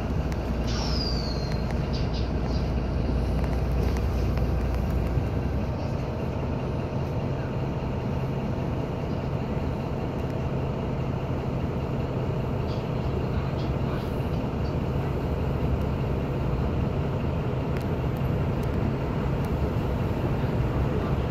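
Mercedes-Benz Citaro city bus's diesel engine idling steadily, heard from inside the passenger cabin while the bus stands still. There is a brief high, falling squeal about a second in.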